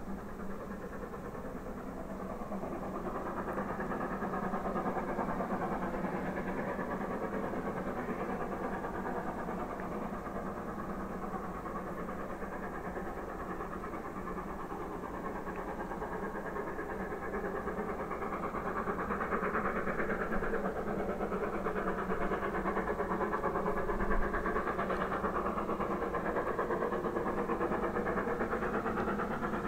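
Great Western steam locomotive working a train under steam, its chuffing exhaust beats getting gradually louder as it approaches.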